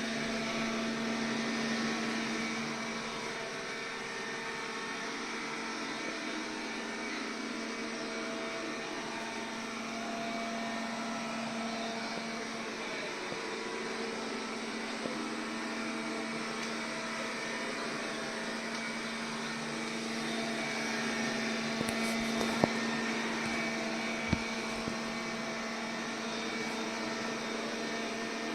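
MOVA robot vacuum cleaner's motor running steadily: a constant hum with a hiss over it, and two short clicks late on.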